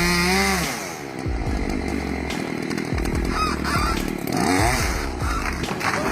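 A chainsaw running.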